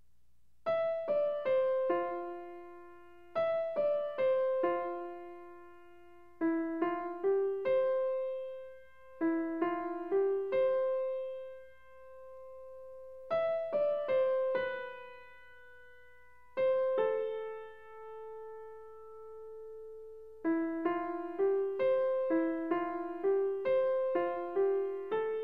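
Background music: a slow, simple melody of single piano notes, each struck and left to ring and fade, in short phrases with pauses between them. Near the end the notes come quicker and more evenly.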